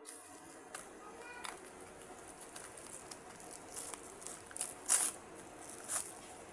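The plastic blister pack of a disposable syringe crinkling and crackling as it is handled and torn open, with sharp crackles that are loudest about five seconds in and again a second later.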